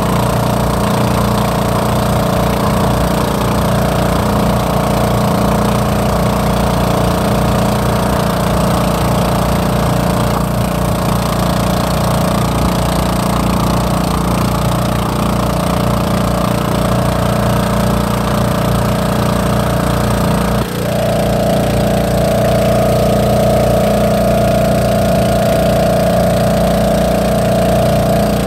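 Outrigger boat's engine running steadily under way, with a steady hiss of water and wind over it. About two-thirds through the engine note dips briefly, then carries on with a slightly changed tone.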